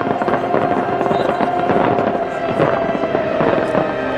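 Fireworks bursting and crackling in rapid, irregular succession, with a steady held tone running under them.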